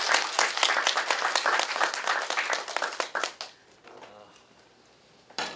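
Applause from a small audience: dense hand clapping that dies away about three and a half seconds in.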